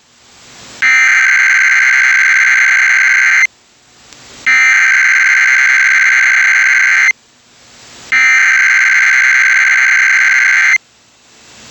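Emergency Alert System SAME header: three identical bursts of harsh buzzing digital data tones, each about two and a half seconds long with a pause of about a second between them. This data burst opens an EAS broadcast and encodes the alert type and the areas it covers.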